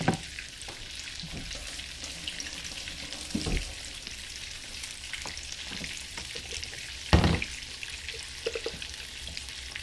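Breaded cod fillet sizzling in hot bacon grease in a skillet, a steady hiss, with a dull knock about three and a half seconds in and a louder thump about seven seconds in.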